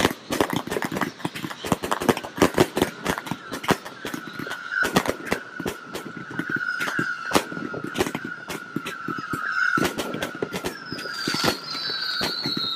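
Fireworks going off: rapid, irregular crackling bangs, with a long high whistle from about four seconds in that slowly falls in pitch, and a second, higher whistle joining near the end.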